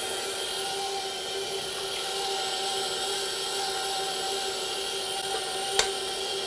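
Electric stand mixer running steadily with a paddle attachment, beating butter, sugar and eggs, with a steady motor whine. Near the end a single sharp knock as an egg is cracked.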